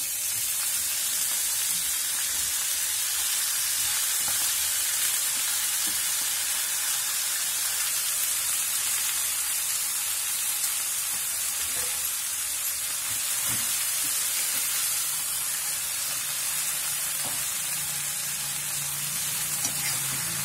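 Fresh fenugreek leaves sizzling in hot oil in a kadai, a steady frying hiss that swells over the first couple of seconds as the leaves go in, then holds.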